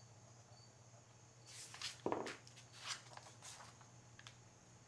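Faint handling noise at the workbench: a few brief rustles and light knocks, the strongest about two seconds in, over a steady low hum.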